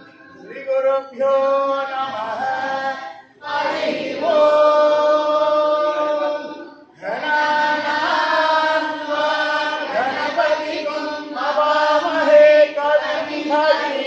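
Voices singing a Hindu devotional bhajan in long held phrases, with brief pauses about three and seven seconds in.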